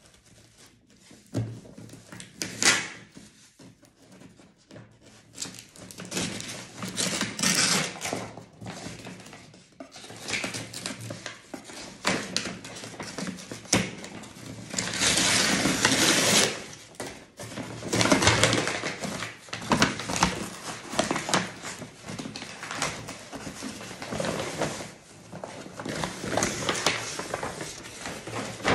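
A cardboard box being opened and unpacked by hand: irregular rustling, scraping and tearing of packaging, with small knocks and clicks as it is handled. There is a longer, louder stretch about halfway through.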